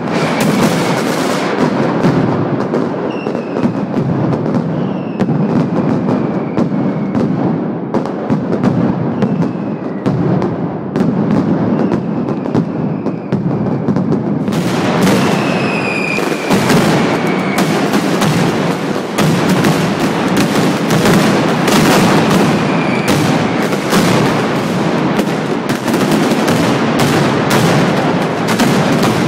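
A mascletà, the Valencian daytime firecracker barrage: a rapid, unbroken rattle of loud firecrackers that starts abruptly. Several falling whistles from whistling rockets sound over the bangs.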